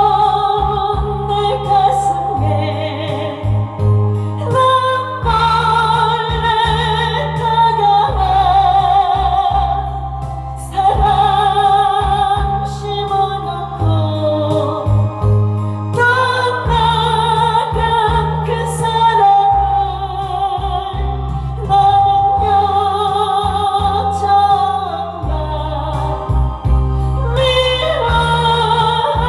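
A woman singing a slow Korean ballad with vibrato over a backing track with a steady bass line.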